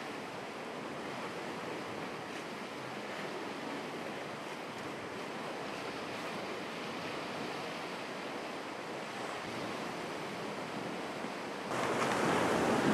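Sea surf and wind: a steady wash of waves with no distinct strokes. About a second before the end it jumps abruptly louder, with wind buffeting the microphone.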